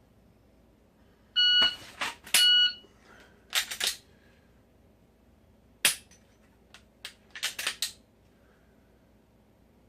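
Shot timer on a par setting gives two short beeps about a second apart, the start signal and the par time, with a single sharp dry-fire click of the Glock's striker between them. This is followed by several scattered sharp clicks and rattles as the pistol is handled and reset.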